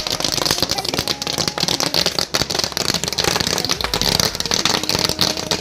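Hundreds of paper roll caps for toy cap guns burning in one heap, going off in a fast, continuous crackle of small pops.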